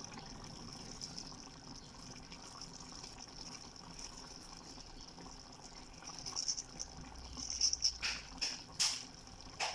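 A pot of chicken stew simmering steadily on the stove. In the last few seconds a handheld grater scrapes with a run of short strokes as cheese is grated over the pan.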